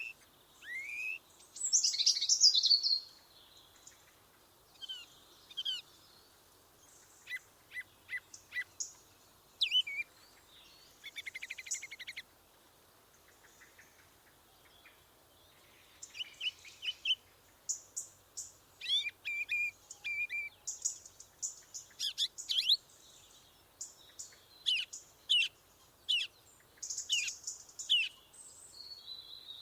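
Several songbirds singing and calling in a forest: short chirps, whistled notes and rapid trills, with a loud burst of song about two seconds in and a lull about halfway through.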